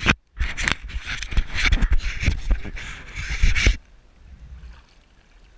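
Water splashing and sloshing against the camera's housing as it bobs at the surface, with irregular thumps and hiss that drop off sharply about four seconds in to quiet lapping.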